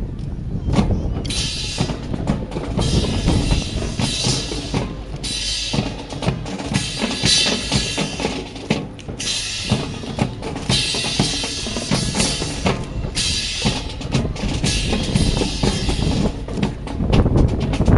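Drum-led music played on bass drum, snare drum and cymbals, with a busy beat and cymbal crashes coming and going every second or two.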